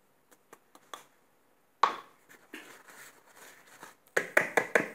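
Fine flour poured from a glass into a plastic mixing bowl of flour, with a sharp tap about two seconds in and a soft rustle after it. A quick run of loud rubbing strokes near the end comes from fingers stirring through the dry flour against the bowl.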